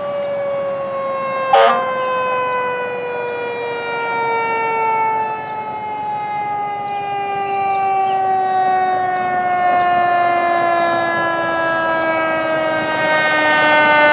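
Fire engine siren sounding one long, steady tone that slowly falls in pitch. About one and a half seconds in there is a brief, sharp, loud burst.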